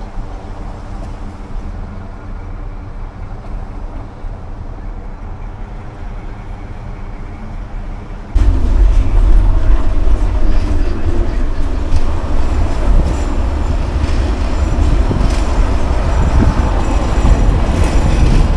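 A vehicle's steady low running rumble. About eight seconds in it suddenly becomes much louder and rougher, with scattered clicks.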